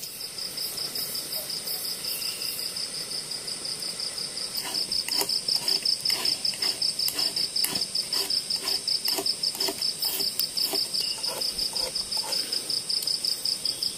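Crickets trilling steadily in a fast, even pulse. About a third of the way in, a series of regular knocks starts at roughly two a second and fades out near the end.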